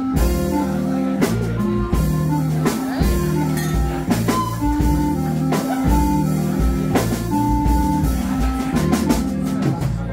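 Live jazz quartet playing: clarinet carrying a melody of long held notes over electric guitar, upright double bass and a steady drum-kit beat.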